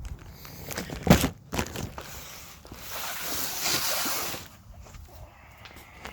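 A heavy load set down with a loud thud about a second in, then about a second and a half of scraping noise as things are shifted around.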